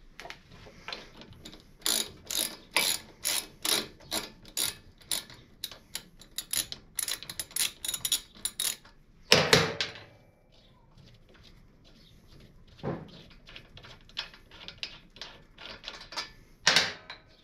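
A hand ratchet clicking in a steady run, about three clicks a second, as it backs out a front brake caliper mounting bolt that was already broken free and spins out easily. About nine seconds in there is one loud clunk, followed by fainter ticks and a couple of knocks as the bolt is turned out by hand.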